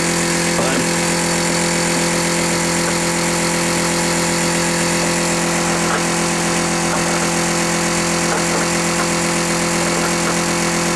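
A machine running steadily: an even, engine-like drone that holds one constant pitch.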